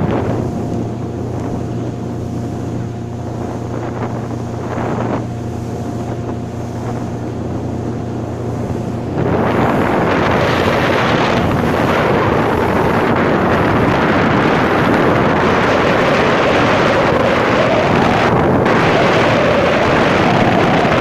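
Motorboat engine running steadily with wind on the microphone. About nine seconds in, a much louder rush of wind and water comes in as the boat speeds along.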